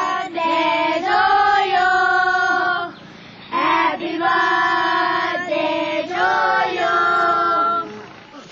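Group of young novice monks chanting a Pali blessing in unison, in long, held, sung tones, with a brief pause about three seconds in.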